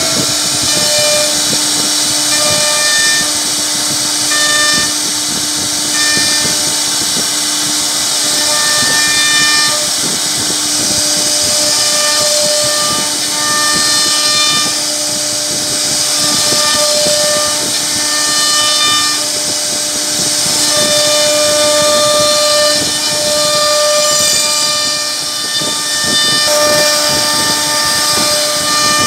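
CNC router spindle with its bit carving a relief pattern into a solid wood panel. It makes a steady high whine over the hiss of the cutter chewing the wood, and its overtones swell and fade as the bit moves through the cut.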